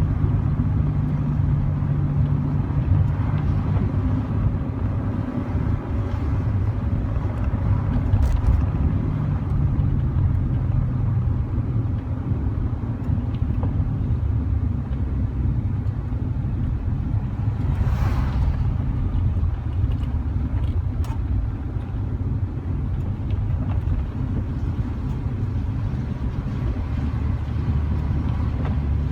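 Car engine pulling steadily uphill in a low gear selected by hand, heard from inside the cabin over steady road noise, with a brief swell of noise about eighteen seconds in.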